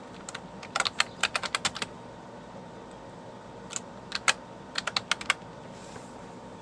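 Typing on a computer keyboard: two quick runs of keystrokes, one about a second in and another around four to five seconds in.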